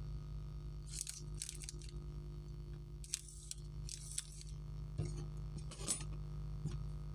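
Short crinkling rustles of a chocolate wrapper being handled, about six brief bursts, over a steady low electrical hum.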